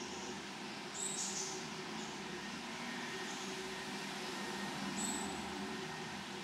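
Steady outdoor background noise with a low hum, and brief hissing swells about a second and about five seconds in.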